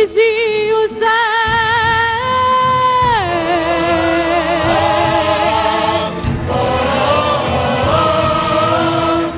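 A woman sings a long held note with vibrato, slides down about three seconds in, and a women's choir then sings on in harmony.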